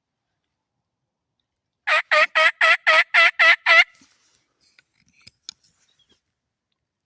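Hand-operated turkey call sounding a run of eight quick yelps, about four a second, loud and close. A few faint clicks follow.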